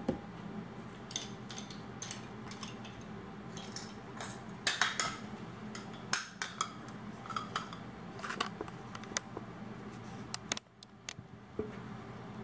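Light clinks and clicks of kitchen utensils and measuring spoons being handled and set down, scattered irregularly over a low steady hum; the stand mixer is not running.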